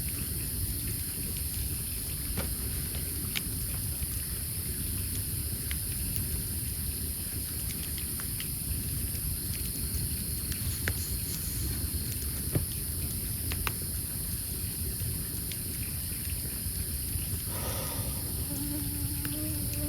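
Campfire burning wood crackling, with scattered sharp pops and snaps over a steady low rush and a constant high insect drone. Near the end a fly starts buzzing close by.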